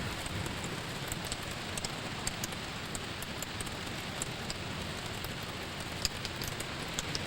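Steady rain falling, with scattered small ticks of drops hitting close by.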